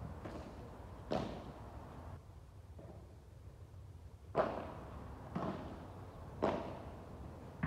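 Padel ball being hit back and forth with padel rackets during a rally, with bounces off the court and walls: a handful of sharp pops, mostly about a second apart, with a pause of about three seconds after the first two.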